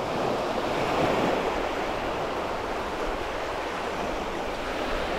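Surf washing on a beach: a steady rush of breaking waves that swells slightly about a second in.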